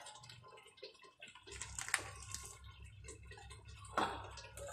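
A steel ladle scoops thick dal from an aluminium pot and pours it into a glass bowl: soft wet pouring with a few light clinks of the ladle, one about two seconds in and one about four seconds in.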